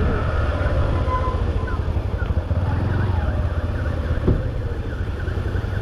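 A Bajaj Platina motorcycle's small single-cylinder engine running with a steady low rumble. Faint short high chirps repeat over it, and there is one brief click about four seconds in.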